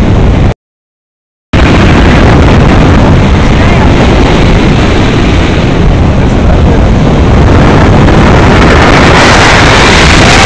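Heavy wind rushing over the camera microphone on a tandem paraglider in flight, with a sudden gap of silence of about a second shortly after the start. The hiss grows brighter and stronger near the end as the glider comes down low over the ground.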